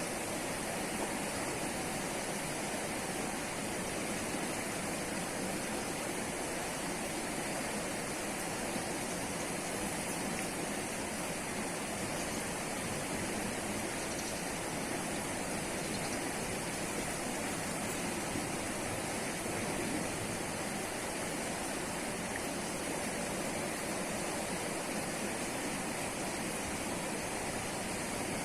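Steady rush of flowing river water, an even hiss without breaks or separate events.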